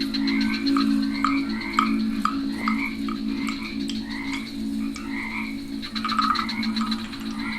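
Rainforest frogs calling, short croaks repeating about twice a second, over a steady high insect trill and a low, even hum.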